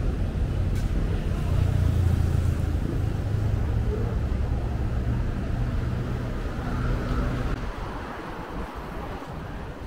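Road traffic: a vehicle engine's low, steady hum, loudest about two seconds in and fading away near the end, over the general noise of passing traffic.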